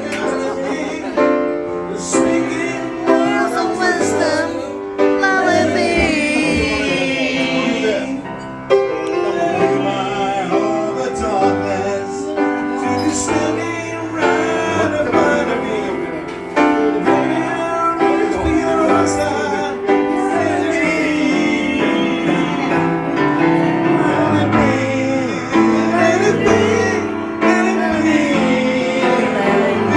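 Music: a voice singing a song over piano-like keyboard accompaniment.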